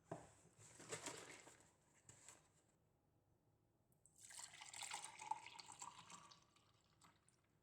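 Faint running water, starting abruptly a little past the middle, running for about two seconds and then fading out. Soft handling noises come before it in the first couple of seconds.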